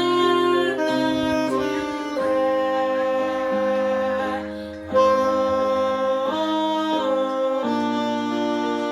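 Instrumental worship-song music: a melody in long held notes over sustained chords. It fades briefly just before the midpoint, then comes back in louder.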